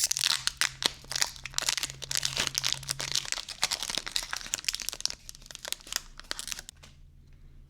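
Foil wrapper of a Pokémon card booster pack crinkling and crackling as it is torn open and handled; the crackling stops near the end.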